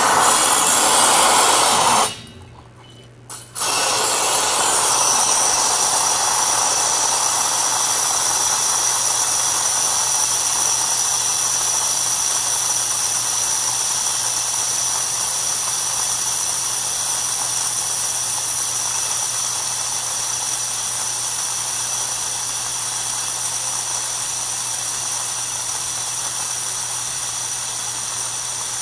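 Compressed air and rusty condensate blasting out of an air compressor tank's opened thumb-screw drain valve, a loud spraying hiss. It cuts out briefly about two seconds in, then resumes steadily with a thin high whistle, slowly weakening as the tank pressure bleeds down. The brown water is years of undrained condensation and rust in the tank.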